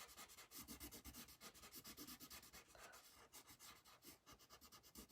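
Faint scratching of a coloured pencil shading on paper, in quick back-and-forth strokes several times a second.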